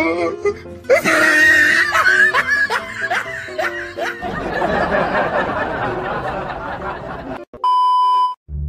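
Edited-in comedy sound effects over music: wobbling, sliding tones, then a laughter track. Near the end comes a steady beep lasting about a second.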